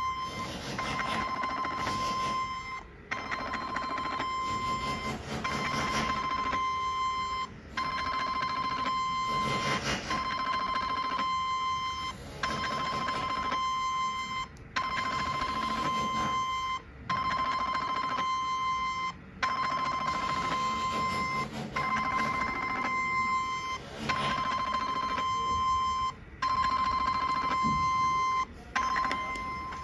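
Portable 7D HIFU machine beeping a steady high tone while its handpiece fires each line of shots. Each run of beeping lasts about two seconds and is separated from the next by a short break, about a dozen times over, with a fast ticking under each run.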